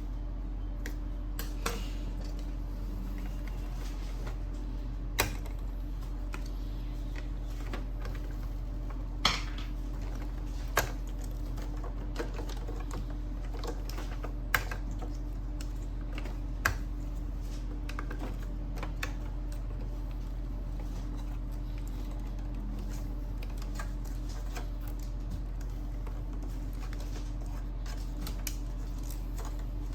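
Scattered sharp clicks and taps of small plastic parts being handled on an Epson L6290 inkjet printer while its printhead is being fitted, about seven distinct clicks spread out irregularly over a steady low hum.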